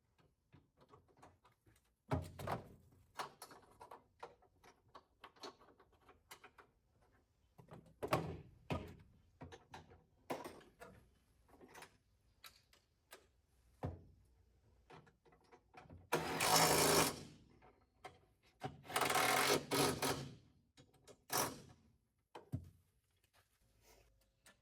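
Rattle gun (impact wrench) tightening the towbar mounting bolts in two rattling bursts of about a second each, the first about two-thirds of the way in and the second about three seconds later. Scattered knocks and clicks of tools and parts being handled come before them.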